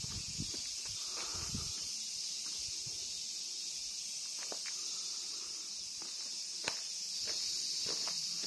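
Insects drone steadily at a high pitch, with scattered footsteps on the path; one step a little past two-thirds through is the sharpest.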